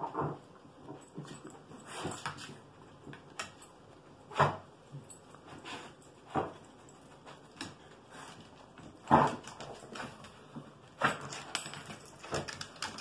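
Beagles snorting and sniffing with their noses pushed into a fleece snuffle mat while foraging for hidden treats, in short noisy bursts every second or two, the loudest about nine seconds in.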